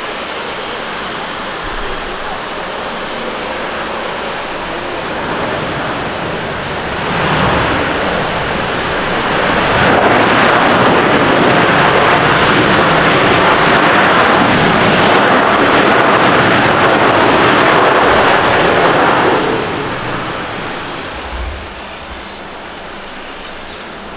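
Boeing 787-9 airliner landing on a wet runway: steady jet engine noise that swells after touchdown, stays loud for about ten seconds as it rolls out, then falls away.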